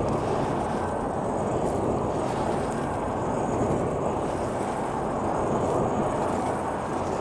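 Freshly lit coal forge fire burning hard under the air blast from a hand-cranked blower: a steady, low rushing that holds level with no breaks.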